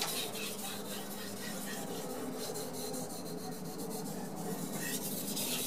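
Kitchen knife blade stroked back and forth on a wet #8000-grit Carborundum waterstone, polishing the edge: a faint, steady scraping of repeated strokes.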